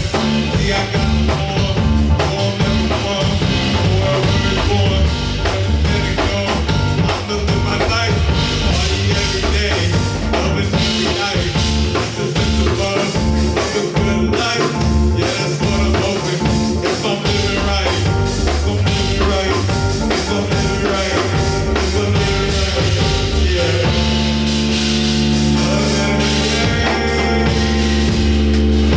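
Rock band playing with drum kit, bass and guitar. About 24 seconds in, the drumming thins out and the band holds a long sustained chord.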